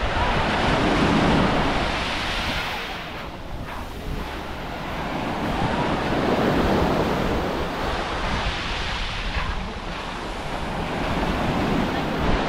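Small waves breaking and washing up a sandy shore, swelling and fading every few seconds, with wind rumbling on the microphone.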